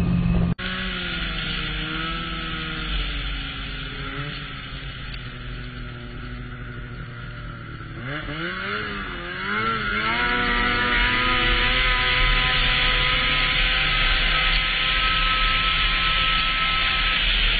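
Snowmobile engine heard from the rider's seat while riding a trail. It runs fairly steadily with small changes in pitch, then revs up and down about eight seconds in, and from there holds a louder, higher, steady note at speed.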